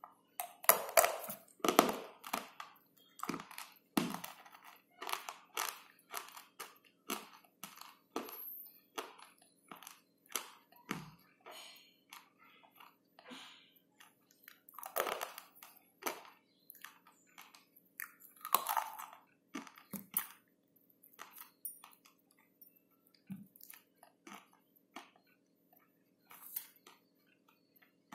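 A slate pencil being bitten and chewed: a run of sharp, dry crunches and crackles, with louder clusters of bites about a second in and again around fifteen and eighteen seconds in.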